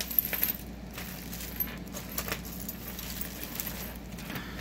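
Costume jewelry (metal chains, beads and pendants) clinking and jangling as hands rummage through the tangled pile, a run of irregular small clinks, thickest in the first half second.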